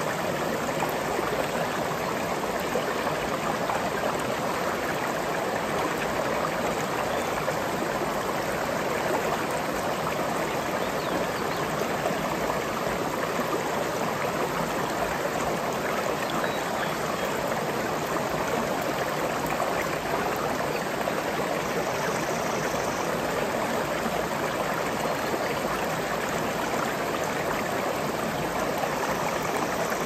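A shallow forest stream flowing over rocks: a steady, unbroken rush of running water.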